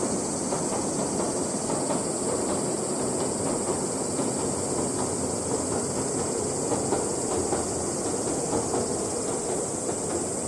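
Ex-Tokyu 7200 series electric train of the Oigawa Railway running across a steel girder bridge at a distance: a steady, even noise with no pitch, over a constant high hiss.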